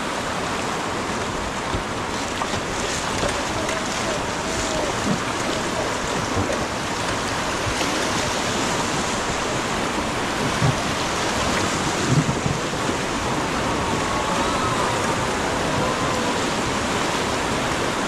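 Steady rush of river rapids, white water churning around an inflatable raft as it runs downstream.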